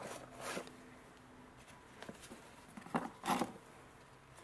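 A few soft rustles and knocks of oil filter parts and their cardboard box being handled, about half a second in and again around three seconds in, with quiet room tone between.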